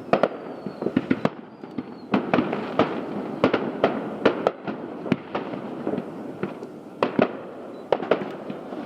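Aerial fireworks heard from a distance: a rapid, irregular run of sharp bangs and booms of differing strength over continuous crackling, with a faint falling whistle in the first two seconds.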